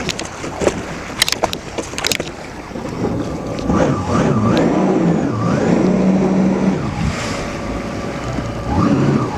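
Personal watercraft engine running, growing louder about three seconds in and wavering up and down in pitch, with its jet intake clogged with weeds. A few sharp knocks sound in the first couple of seconds.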